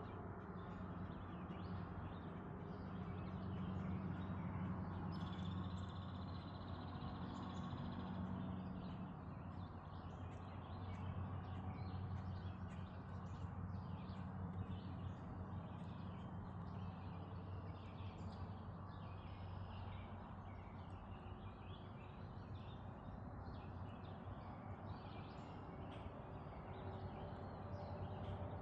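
Goslings peeping: many short, high chirps throughout, over a steady low hum.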